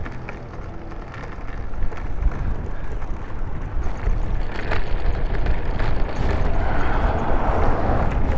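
Recumbent e-trike rolling over cobblestones, a steady rumble with small knocks and rattles from the wheels, and wind noise on the microphone. The rumble grows louder a couple of seconds in and again near the end.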